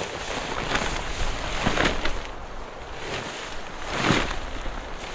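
Wind buffeting the microphone in gusts over a steady low rumble, swelling about two seconds in and again near four seconds.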